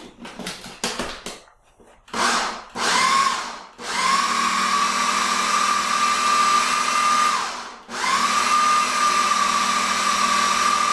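Ninja blender motor spinning a plastic blade through cream cheese and sugar. After a few light clicks it runs in two short pulses, then two long steady runs with a brief wind-down between them.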